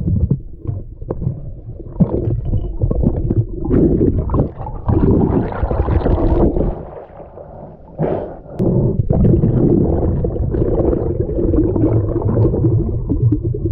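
Muffled underwater rumbling and gurgling of moving water and air bubbles around a GoPro action camera worn by a snorkeler, with a quieter stretch about seven seconds in.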